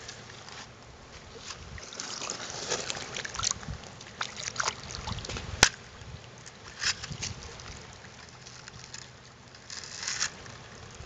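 Shallow creek water sloshing and trickling, with irregular crunches and knocks on wet gravel and one sharp click a little past halfway.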